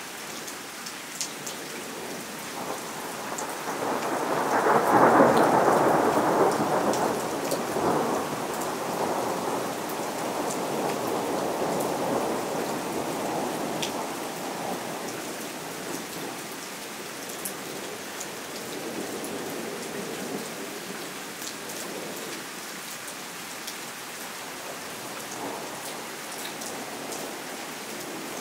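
Steady rain with rolling thunder. A long rumble builds about three seconds in, is loudest around five seconds and rolls away over the next ten seconds, and weaker rumbles come later.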